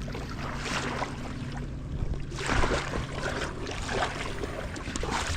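Rushing wind and water noise on open water, loudest about two and a half seconds in, over a steady low hum that fades out about halfway through.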